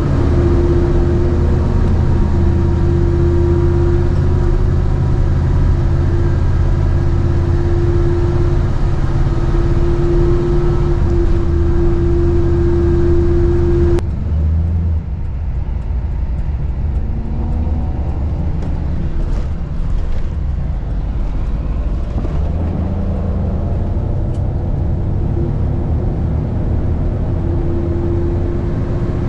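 GMC motorhome's V8 engine and road noise under way while towing a heavy boat trailer: a steady low drone with a constant whine over it. The whine cuts off suddenly about halfway through and comes back near the end.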